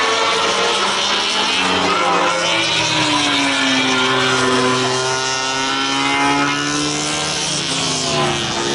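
Racing motorcycle engines at a race circuit, several at once, their notes rising and falling as the bikes accelerate and shift through the gears.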